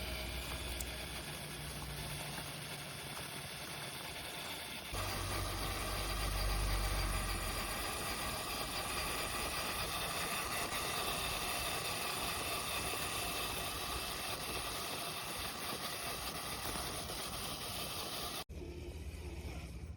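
Axial SCX10 III Base Camp RC crawler's electric motor and geared drivetrain whining steadily as it drives. The sound jumps louder about five seconds in and changes abruptly near the end, where the clips are cut together.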